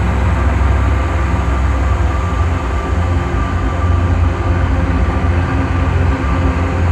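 Loud, steady drone music: a heavy low rumble under a dense wash of noise, with a faint high tone held throughout.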